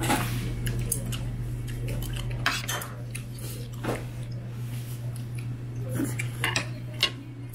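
Metal spoon scraping and clinking against a ceramic plate while scooping kimchi fried rice, a string of short scrapes and clicks over a steady low hum.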